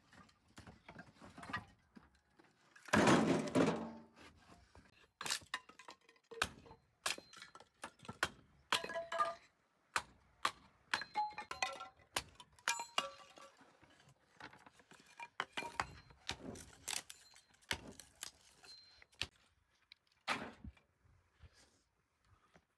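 Irregular knocks, thunks and small ringing clinks of objects and utensils being handled. About three seconds in there is a louder rushing noise lasting about a second.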